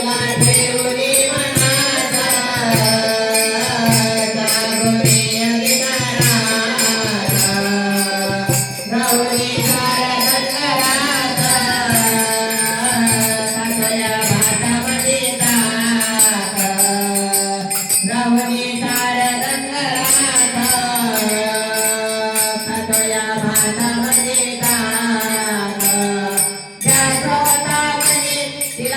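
Marathi devotional song to Khandoba: a wavering melodic line over steady, evenly spaced percussion, with a brief break a couple of seconds before the end.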